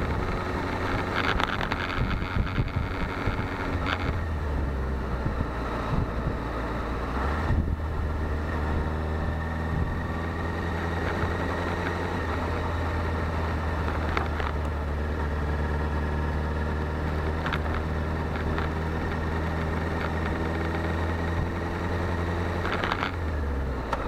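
Sport motorcycle's engine running at low, steady revs, heard from on the bike. Its note dips about four seconds in, holds level for most of the time, and drops again near the end.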